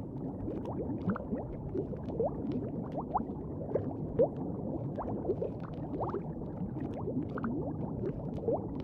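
Steady bubbling of liquid: many quick rising plops over a low churning wash, with the occasional sharper pop.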